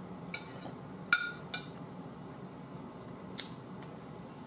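Metal fork clinking against a dinner plate: four sharp, ringing clinks, the loudest about a second in.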